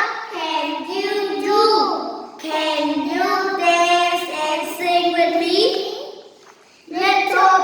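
Young children singing a song, phrase after phrase, with a short pause near the end.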